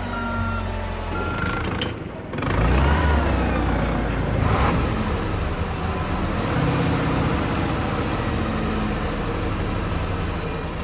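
Motor vehicle engine sound effect running under music, falling in pitch at first, with a few short repeated beeps in the first second and a half.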